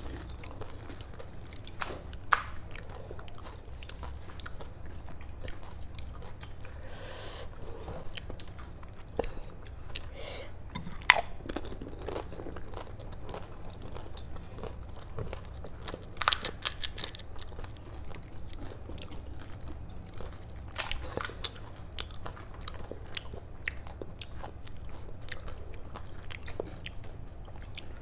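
Crisp, hollow pani puri shells cracking and crunching as two people bite into them and chew, with scattered sharp crunches every few seconds.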